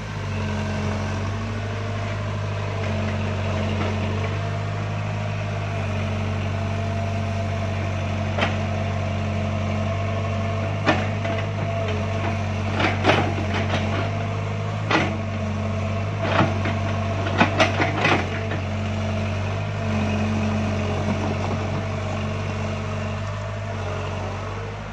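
Sumitomo S160 crawler excavator's diesel engine running under load, with a steady higher whine over the engine note. Several sharp knocks come in a cluster through the middle.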